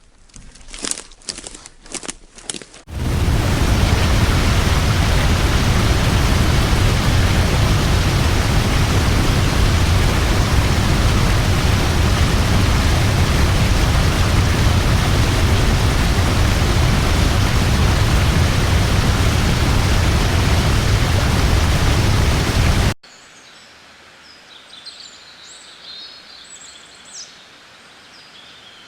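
A few sharp taps, then a loud, steady rush of falling water from a big waterfall, heavy in the low end, that cuts off suddenly after about twenty seconds. Quiet outdoor ambience with small birds chirping follows.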